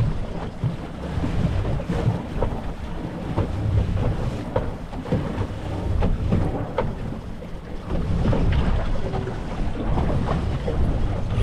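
Wind buffeting the microphone over water sloshing against a fishing boat's hull, with scattered light knocks.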